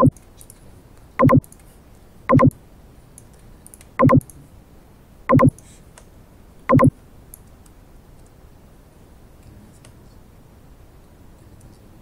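Computer keyboard typing, heard as faint light clicks. Over it come six short, loud pitched tones, spaced about a second or so apart, in the first seven seconds.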